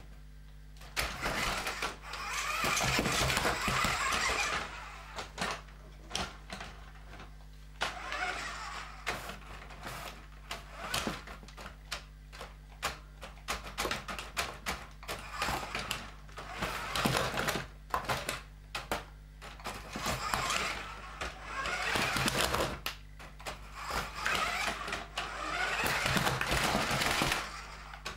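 New Bright Ram RC truck's battery-powered electric drive and plastic gearbox whirring in bursts of a few seconds, with many sharp clicks and clatters in between as its tyres knock over plastic bottle caps and pieces of PVC pipe.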